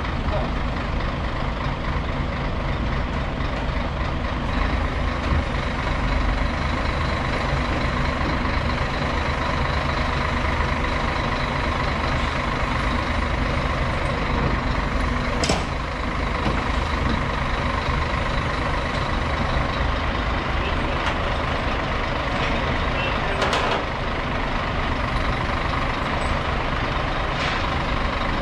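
Truck-mounted loader crane running steadily, its truck engine's low noise overlaid by a faint steady whine while it holds a large figure on the hook. Two sharp metallic clanks stand out, about halfway through and again about three quarters through.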